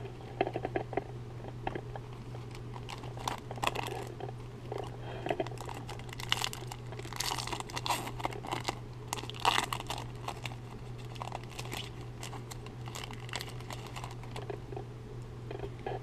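Foil trading-card pack wrapper crinkling and tearing as it is opened by hand, with irregular crackles that are busiest in the middle, along with baseball cards being handled. A steady low hum runs underneath.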